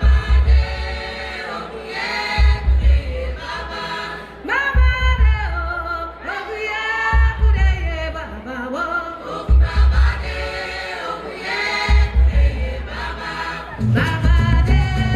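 Music with group singing, the voices sliding between notes, over a heavy low drum beat that lands as a cluster of strokes about every two and a half seconds. Near the end a fuller, busier beat comes in.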